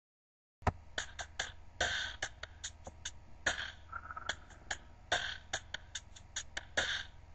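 Percussive opening of a pop song's backing track: a run of sharp drum hits and snare-like bursts at an uneven rhythm, with no singing yet. It starts about half a second in, after a brief dead silence.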